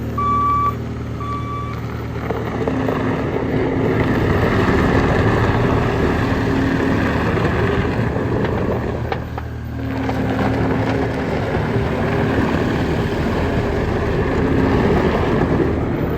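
Case skid steer's diesel engine running and working, its sound building from about two seconds in and dropping briefly near the middle. A backup alarm beeps twice at the start.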